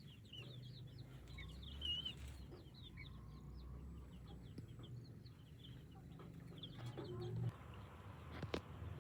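Chicks peeping: many short, high chirps in quick succession, with a sharp click near the end.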